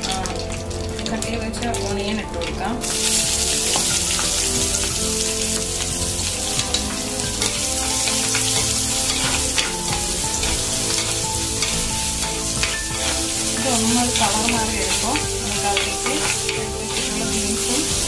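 Chopped onion sizzling in hot oil in a clay pot with tempered mustard seeds, dried red chillies and curry leaves, stirred with a spoon. A lighter crackle of the tempering jumps to a much louder, dense sizzle about three seconds in, as the onion hits the oil.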